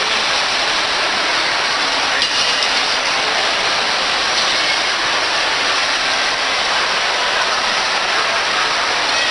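Steady wash of shopping-mall crowd ambience: many indistinct voices and footsteps blurred into an even hiss-like hubbub, with no single sound standing out.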